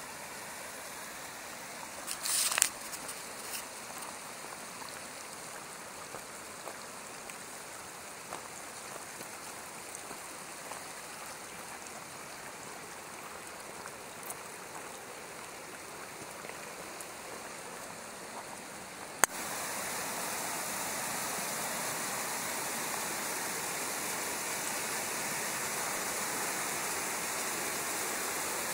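Mountain stream running over rocks, a steady rushing hiss of water. About two-thirds of the way through it jumps suddenly louder as a cascading stretch of the stream is close by. A brief loud knock or scrape comes a couple of seconds in.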